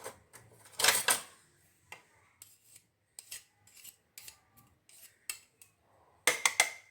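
Metal spoon scraping and clinking against a jar while scooping thick, sticky paste: short scrapes and taps, with a louder scrape about a second in and a cluster of clinks near the end.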